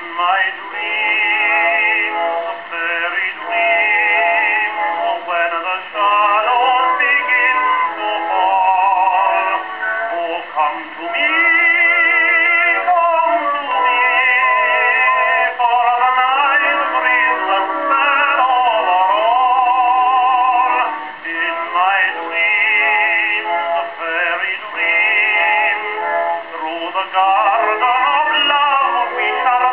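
Victor Victrola VV-VI acoustic phonograph playing a 78 rpm record of a male tenor singing with strong vibrato. The sound is thin and midrange-only, with no deep bass or high treble, as from a wind-up horn machine.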